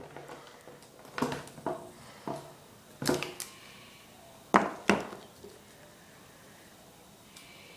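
Several sharp knocks and clatters of hard objects being handled and set down, each with a short ring; the loudest two come close together about four and a half seconds in.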